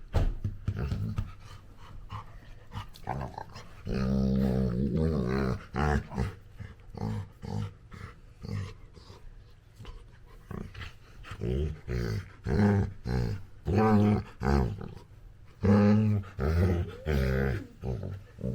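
Labrador puppy growling in play, in a series of low throaty growls and grunts. A long run starts about four seconds in, and more come in quick succession in the second half.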